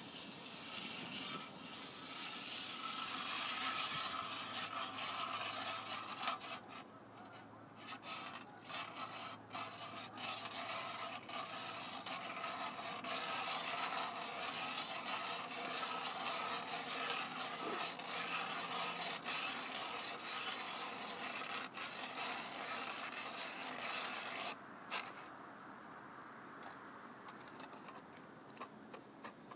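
Ice auger drilling through lake ice to check its thickness, a steady cutting and scraping noise that stops abruptly about 25 seconds in.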